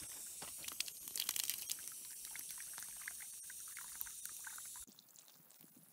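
Water from a garden hose pouring into a rusty cast-iron teapot, splashing as it fills. The sound drops away abruptly about five seconds in.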